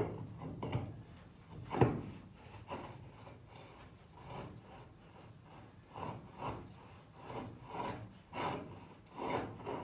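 A wagon wheel with a new airless tire being turned by hand on its axle, giving a series of rubbing, scraping strokes. There is a sharp knock at the very start and another about two seconds in, and the strokes come about twice a second near the end.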